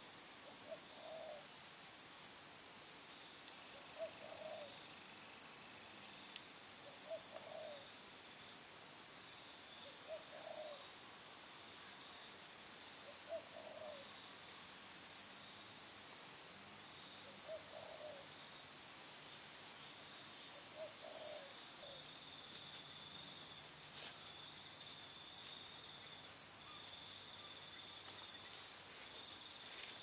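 A steady, high-pitched insect chorus drones, the loudest sound. Under it a spotted dove coos softly, a short low call repeated about every three seconds, stopping about two-thirds of the way through.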